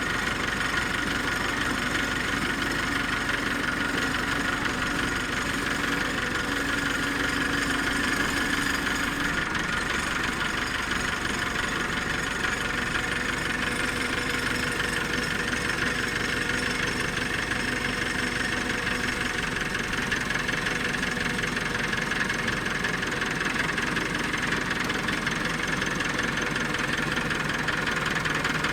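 Tractor engine running at a steady, unchanging speed.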